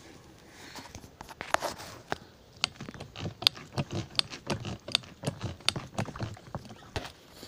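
Irregular clicks and knocks with dull thumps, about two or three a second, from a garden pump sprayer being worked while spraying tomato plants.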